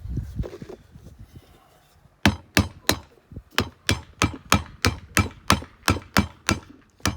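Hammer blows tapping a tight-fitting disc into place, a steady run of sharp knocks at about three a second starting about two seconds in, after some low handling noise.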